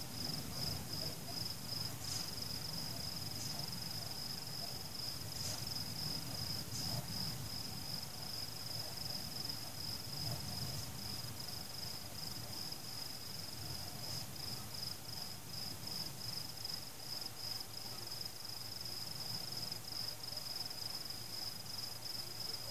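Crickets chirping in a steady, evenly pulsed rhythm at one high pitch, over a faint low background rumble.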